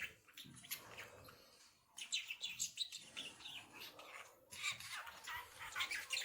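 Pet budgerigar chattering in a fast warble of short, high chirps, in two dense runs: one from about two seconds in and another from about four and a half seconds.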